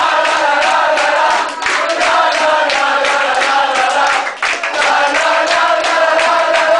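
A crowd of people chanting together in unison, with hand clapping.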